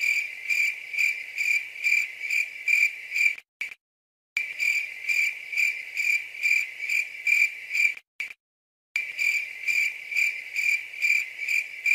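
Cricket chirping sound effect: a high chirp repeated evenly about two and a half times a second. It cuts out to dead silence twice, about a third of the way in and again about two-thirds in.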